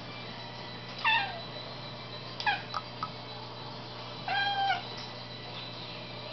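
Domestic cat meowing three times. The first call falls in pitch, the second is short, and the last is longer and held level.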